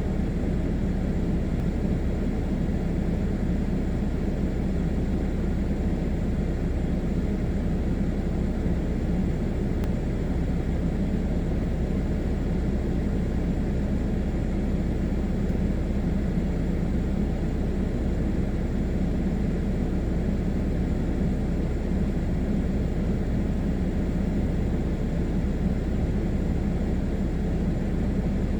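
A blower running steadily: an even low hum with a rush of moving air that doesn't change.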